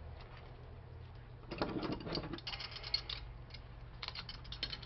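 Small metal and plastic parts of a DVD-ROM drive's laser-head assembly clicking and rattling as they are handled and worked apart by hand, in quick clusters of light clicks starting about a second and a half in and again near the end.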